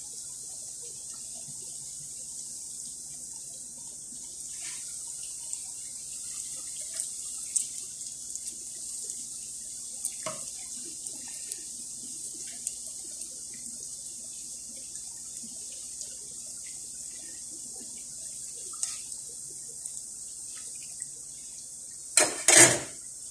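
Bitso dough twists deep-frying in hot oil in a pan: a steady high sizzle with scattered crackles and pops. Two short loud noises come near the end.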